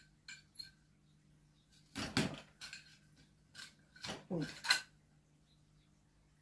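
Metal plunger-type fruit pitter pressed down twice, each press a short cluster of metallic clacks as the stone is pushed out of a plum. The second press, about four seconds in, is the louder. A few light clicks come before, as a plum is set in place.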